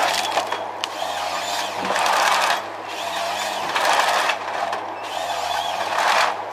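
Heavy forestry machine's engine running steadily under load, with a burst of mechanical noise about every two seconds; the engine note dips briefly about five seconds in.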